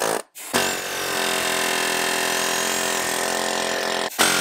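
Pneumatic air hammer knocking the worn leaf spring shackle bushing out of a Jeep Cherokee XJ's rear spring eye: a few short blips at the start, a steady run of about three and a half seconds, then one more short burst near the end.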